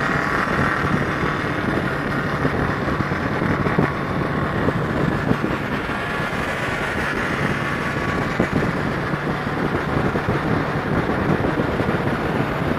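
Motorcycle under way: steady engine and road noise, with wind buffeting the microphone.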